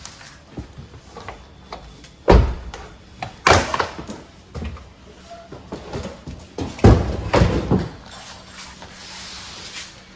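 Several knocks and thuds as a long black running step, just removed from the car, is lifted and set down among cardboard boxes. The loudest knocks come a little over two seconds in, at about three and a half seconds, and in a cluster near seven seconds.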